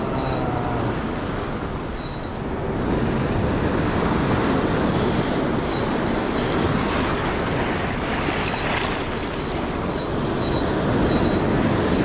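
Sea surf breaking and washing over a boulder shore: a steady rushing noise that swells louder about three seconds in and again near the end, with a few faint short high clicks.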